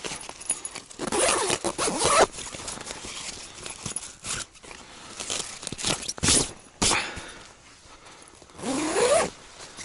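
Zipper on a camouflage tent's door being pulled shut in several short runs, with the fabric rustling; the last, longer pull near the end rises in pitch.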